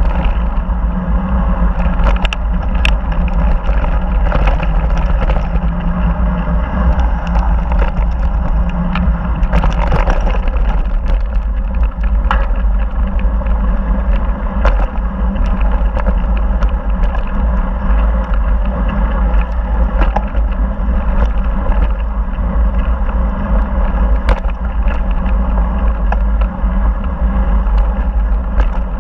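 Wind buffeting a helmet camera's microphone as a mountain bike descends a dirt trail at speed: a loud, steady low rumble, with tyre noise on the gravel and scattered sharp clicks and rattles from the bike over rough ground.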